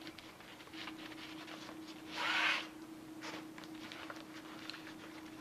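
Nylon fabric of a diving wing's air cell and a bungee cord rustling and scraping as the cord is handled and threaded through the edge tabs, with one louder rustle about two seconds in. A faint steady hum sits underneath.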